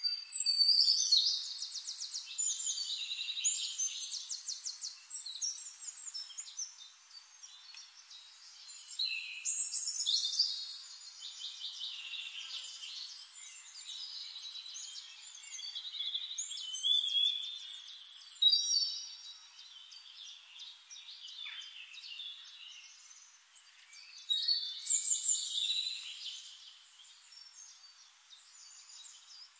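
Songbirds singing in long phrases of fast trills and short sweeping chirps, coming back every seven or eight seconds.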